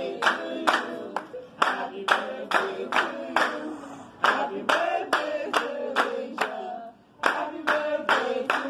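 A group of people clapping in time, about two claps a second, while singing a birthday song together; the claps pause briefly twice and come quicker near the end.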